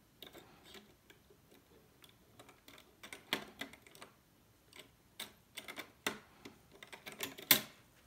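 Irregular light clicks and taps from handling an Intel Core i7-9700K processor in an open LGA1151 motherboard socket with its metal retention lever raised. They come sparsely at first and more often after about three seconds, and the sharpest click comes near the end.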